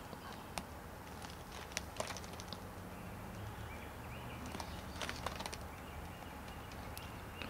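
Paper rustling and scattered light clicks as the pages of an old printed catalog are turned and handled, over a low steady hum.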